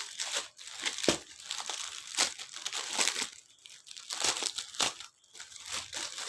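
Plastic packaging being handled and crinkled, with irregular crackles and rustles, some sharp.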